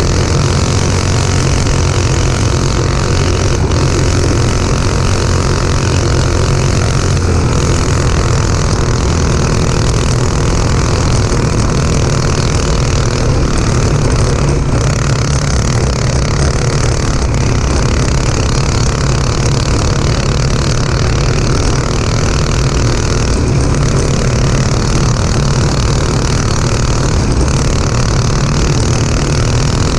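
Go-kart's Honda 5.5 hp single-cylinder engine running steadily under way, heard loud and close from an onboard camera on the kart.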